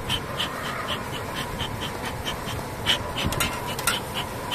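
Honeybees humming over an opened hive, with a fast, even rhythm of soft ticks of about seven a second running through it.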